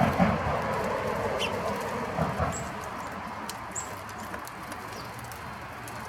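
A few soft taps and two or three brief, very high chirps from small birds over a steady background hum.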